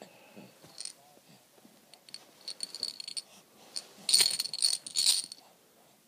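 A baby shaking a pink plastic toy rattle: short bursts of rattling with a bright jingly ring, a brief group near the middle and the loudest, longest one about four to five seconds in.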